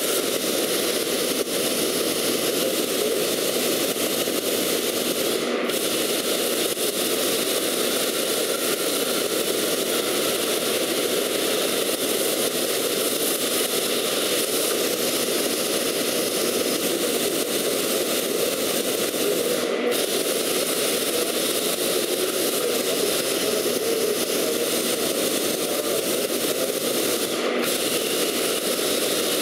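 Plasma torch of a portable CNC cutting machine cutting steel plate: a steady, loud hiss, cut off for an instant three times.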